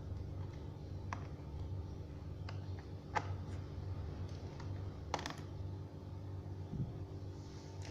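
Scattered sharp plastic clicks and taps from hands working on a laptop's casing and keys, a few seconds apart with a soft thump near the end, over a steady low hum.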